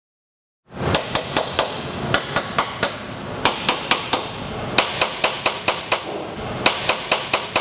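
Ball peen hammer tapping wrecker subframe mounting bolts about three times a second, starting just under a second in. The bolts are being sounded to check whether they are loose: first a loose bolt is struck, then a tight one, and each tap ends in a short ring.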